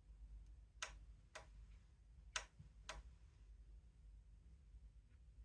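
Faint sharp clicks in two pairs, about half a second apart within each pair, over a steady low hum.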